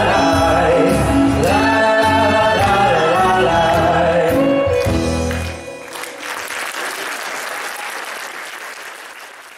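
A woman and a man singing a duet over instrumental accompaniment with a violin, the song ending on a held note about halfway through; then an audience applauds, the clapping fading out near the end.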